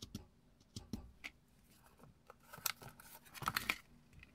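Paper and card being handled: scattered light clicks and taps, then a louder rustle and clatter of card being moved and turned over about two and a half seconds in.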